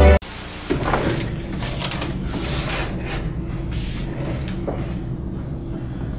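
Laptop and papers being handled on a desk: a knock about a second in, then softer handling noises over a steady low hum.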